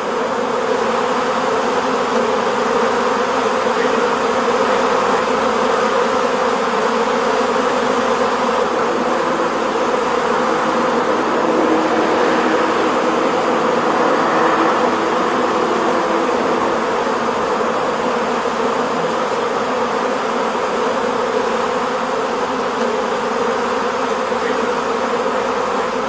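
A swarm of honeybees in flight, buzzing in one loud, steady, dense hum of many bees at once. The swarm has left its hive and is gathering around the queen on a branch.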